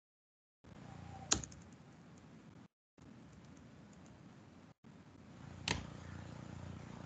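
Two sharp computer mouse clicks about four seconds apart, over a faint low hum of room noise. The background cuts out to dead silence three times.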